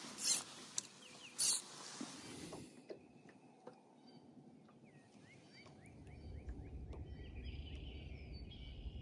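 Two short, loud bursts of hiss in the first two seconds. After them a small bird gives quick rising chirps and twittering calls. Wind rumbles on the microphone from about two-thirds of the way in.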